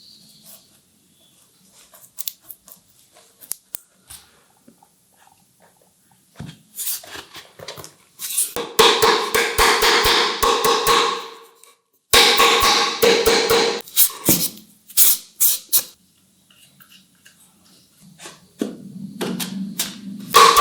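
Hand-tool work on wood: scattered light taps, then two runs of rapid, rhythmic sharp strokes lasting a few seconds each, with the piece ringing at a steady pitch, and more taps near the end.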